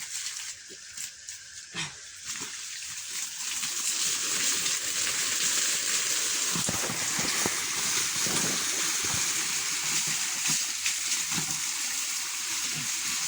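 Water hissing and splashing from a leaking irrigation pipe at a T fitting under repair. The hiss grows louder about three to four seconds in, then holds steady, with a few low knocks.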